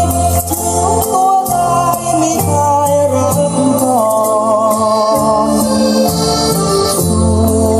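Recorded music played back through a pair of Acoustic Research AR-3 loudspeakers, heard in the room: a Thai song with a held, wavering melody line over steady bass and a regular beat.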